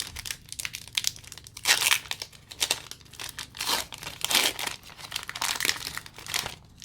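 Foil wrapper of a Pokémon booster pack crinkling and tearing as it is pulled open by hand, in irregular bursts that stop just before the end.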